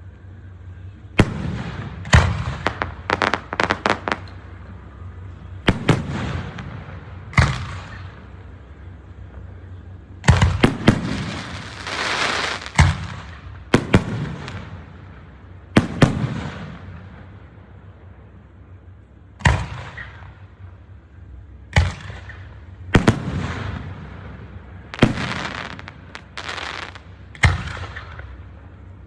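Aerial fireworks bursting: sharp bangs at irregular intervals, several in quick succession in places, each with a short echoing tail, and a longer crackling spell around the middle.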